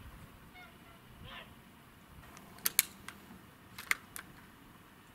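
Two close pairs of sharp clicks, the first a little past the middle and the second about a second later, from a moderated BSA Ultra SE .177 PCP air rifle being shot and worked.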